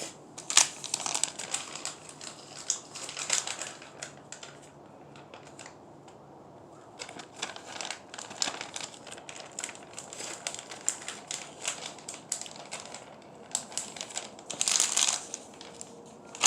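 Plastic bait packaging crinkling and crackling as it is handled, in irregular bursts of sharp clicks, with a quieter stretch in the middle and a louder burst of crinkling near the end.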